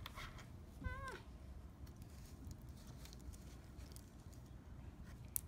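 One short, high-pitched voice-like call about a second in, dropping in pitch at its end, over faint background noise; a sharp click near the end.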